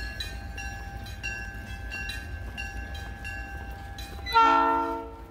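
Train horn sounding one short blast of several notes at once about four seconds in, fading within a second. Before it, the light ringing of wind chimes.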